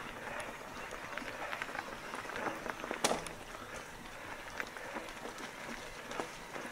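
Mountain bike riding over a gravel and dirt forest track: a steady rolling noise with many small clicks and rattles, and one sharp knock about three seconds in.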